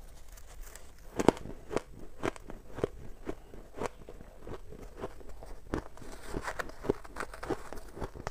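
Close-miked crunching of shaved frost ice being bitten and chewed: a run of sharp, crisp crunches about two a second, loudest about a second in. Near the end a metal spoon scrapes up more of the frost ice from the tub.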